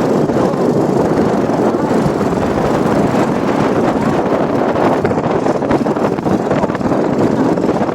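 Strong wind blowing over the microphone: a loud, steady rushing noise.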